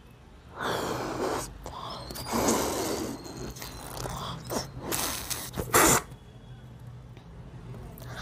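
A person blowing up a rubber balloon by mouth: several hard breathy blows with quick breaths taken in between, the sharpest and loudest one about six seconds in, then the blowing stops.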